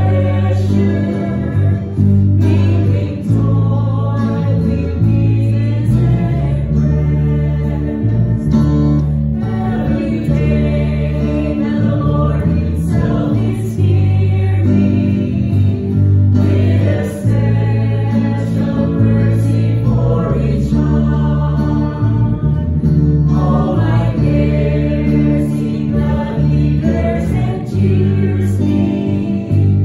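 Small mixed choir singing a Christian worship song together with a live band: electric guitar under the voices and a steady low bass line moving from note to note every second or two.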